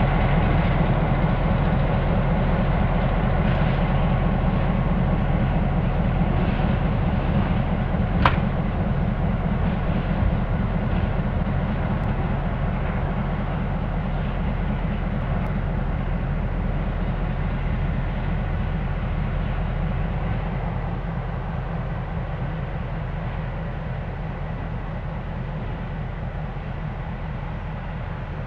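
EMD SW1200 switcher's twelve-cylinder diesel running at a low, steady drone that fades gradually as the locomotive moves away. A single sharp clank comes about eight seconds in.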